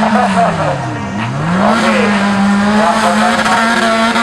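Off-road 4x4 competition vehicle's engine held at high revs, dropping sharply about a second in as the throttle is lifted, then climbing straight back up and running steady again.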